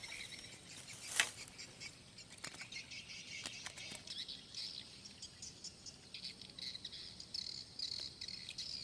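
Crickets and other insects chirping steadily, with bird chirps mixed in. A sharp click sounds about a second in, followed by a few fainter clicks.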